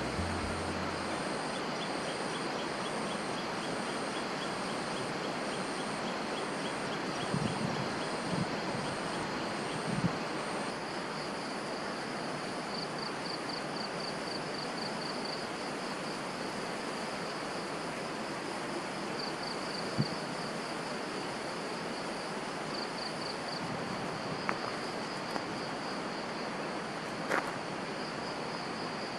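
Outdoor campsite ambience: a steady hiss with insects calling in high, rapidly pulsing trills, and a few faint knocks now and then.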